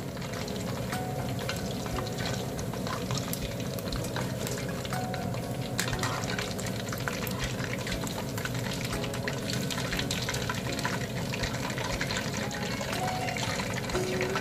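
Chicken wings deep-frying in hot oil: a steady sizzle with constant fine crackling as the oil bubbles around the cooked, golden-crisp wings.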